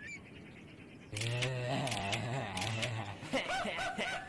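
A low drawn-out voice without clear words, then higher-pitched voices, over crisp crunching clicks of a blade cutting through dry, crumbly soap.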